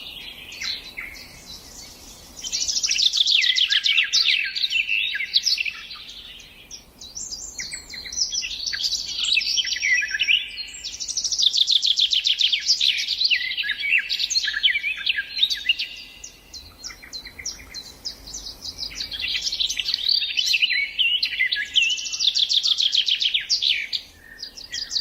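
Songbirds singing in long phrases of rapid trills and chirps, each phrase several seconds long with short pauses between.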